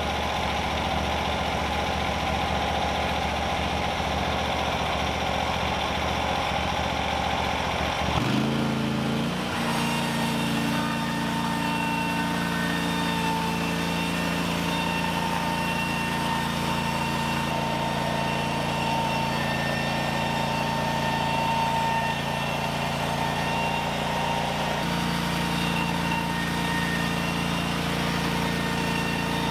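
Small gasoline engine running a portable bandsaw sawmill as the saw head is pushed along a log, cutting a board. About eight seconds in, the sound changes abruptly and settles into a steady, pitched drone that holds through the cut.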